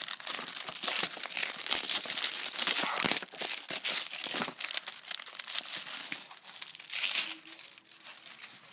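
Plastic wrapping on a card game box being picked at and torn open, crinkling and crackling in quick irregular bursts.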